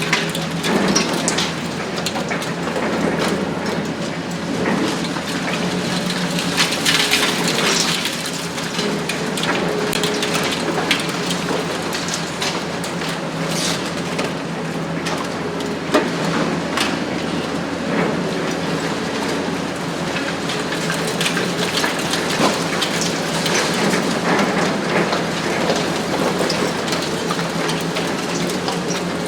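Hitachi ZX 870 XXL long-front demolition excavator's diesel engine running steadily while its hydraulic demolition shear crushes concrete, with a constant crackle of crumbling, falling rubble. Sharp cracks stand out here and there, the loudest about sixteen seconds in.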